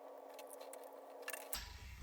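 Faint clicks and light metal taps from a screwdriver and small parts, as the float-bowl screws of a carburetor are worked loose, over a steady low hum. The background changes abruptly about one and a half seconds in.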